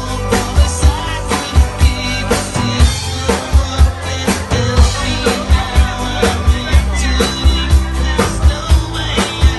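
Rock band playing live, a drum kit driving a steady beat with hard kick-drum hits under the bass and guitars.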